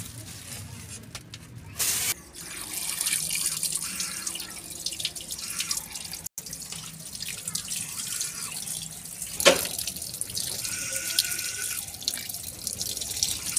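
Tap water running and splashing over raw chicken pieces in a plastic colander as they are rubbed clean by hand, the water draining through the holes. A loud rustle or knock about two seconds in, and a sharp knock about nine seconds in.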